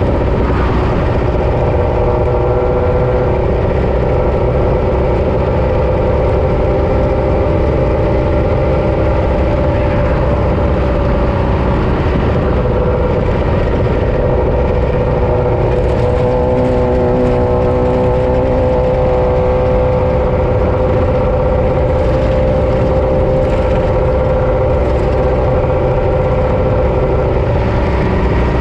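Off-road race vehicle's engine running hard at a fairly steady speed, its pitch easing slightly and shifting a few times, over a dense low rumble.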